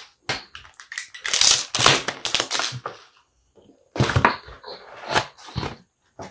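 Thin plastic takeaway bag crinkling and crackling in quick, uneven bursts as it is crumpled and pulled off a cardboard food box, with a thump about four seconds in.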